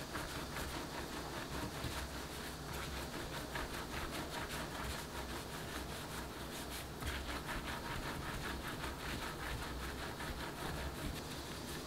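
Hands rolling soft pretzel dough into a long rope on a floured work surface: soft, quick rubbing and light slapping of palms and dough against the tabletop, in runs of rapid strokes that pick up again about seven seconds in.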